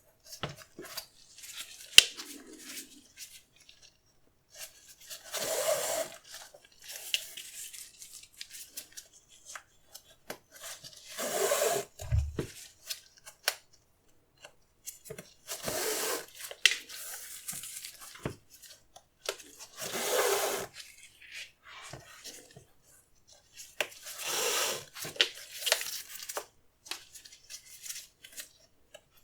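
Hands handling a FILA sneaker and its packaging: about five rustling, rubbing strokes a few seconds apart, with small clicks and taps between them and a soft low thump about twelve seconds in.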